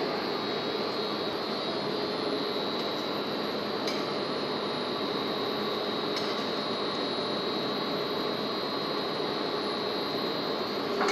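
Plastic kneader and pelletizer line running: steady machine noise with a constant high whine and a lower hum, and a couple of faint clicks partway through.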